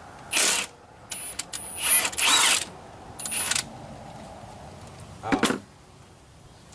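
Hand ratchet turning a 15 mm socket, clicking in about five short runs as a bolt is worked loose.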